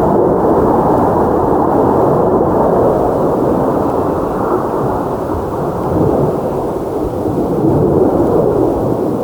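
Military jet fighters flying low just below the ridge: a loud, steady roar that eases a little past the middle and swells again near the end.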